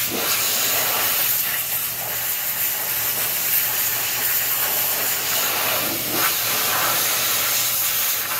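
Hot-water pressure washer jet hissing steadily as it sprays onto a John Deere 720 pony motor (the tractor's small gasoline starting engine), with a low steady hum underneath.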